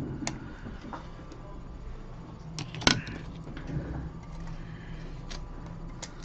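A few scattered short clicks and taps over a low steady hum, the loudest about three seconds in: small tools and phone parts being handled on a repair bench.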